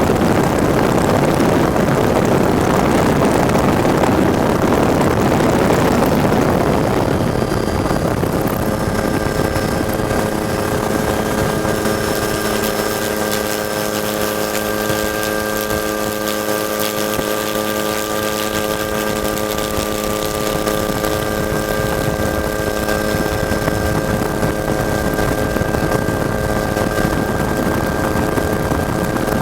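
Helicopter noise from the camera aircraft. For the first several seconds it is a dense, even rushing of rotor and wind; from about eight seconds in, a steady whine of several even tones rises above it and holds.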